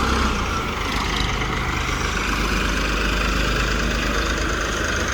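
TAFE tractor's diesel engine running steadily, a low even drone.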